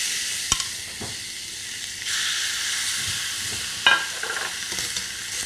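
Marinated lamb neck fillets sizzling on a very hot ridged griddle pan, the sizzle steady and growing louder about two seconds in. A sharp click just after the start and a brief clatter about four seconds in.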